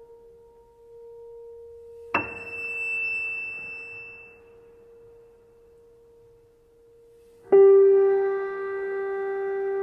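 Ringing, bell-like musical tones. A steady hum fades out, a sharply struck high tone about two seconds in rings out over a couple of seconds, and a second struck tone, lower and rich in overtones, comes in loudly near the end and holds.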